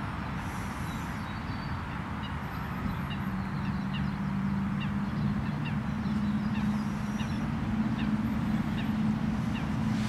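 Short, high, falling bird calls repeating every half second or so over a steady low rumble. A low steady hum joins about three seconds in and grows louder toward the end.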